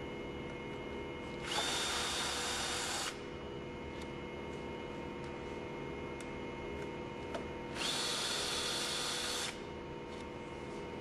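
Cordless drill-driver backing out the screws of a progressing cavity pump's split suction chamber: two runs of about a second and a half each, each starting with a whine that rises as the motor spins up and then holds steady.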